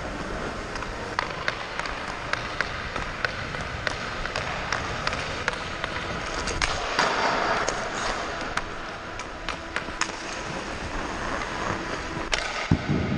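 Ice hockey skates gliding and carving on ice, with frequent sharp clicks of a stick blade tapping the ice and puck. A longer, louder scrape about seven seconds in, and a loud crack near the end.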